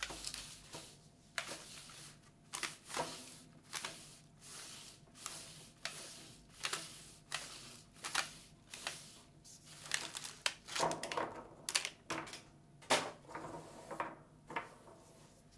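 Clear plastic macaron tray being handled: irregular sharp clicks and crinkly crackles as it is shaken, rolled and opened, with the macarons knocking inside. Near the end, macarons are set down on the steel pan.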